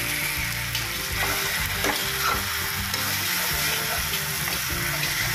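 Boiled macaroni sizzling in a hot kadhai with onion-tomato masala, stirred and scraped by a steel spatula. Short metal-on-metal scrapes and knocks come again and again over the steady sizzle.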